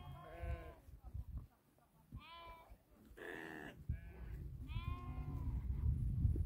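Sheep bleating, about five calls from different animals one after another, over a low rumble.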